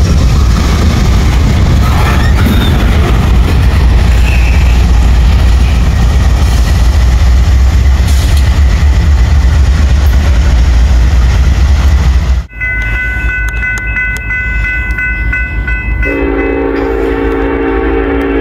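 A train passing close, a loud steady rumble and rush of wheels and cars, which cuts off suddenly. Then come three steady high tones, and near the end a locomotive's multi-note air horn sounds a steady chord.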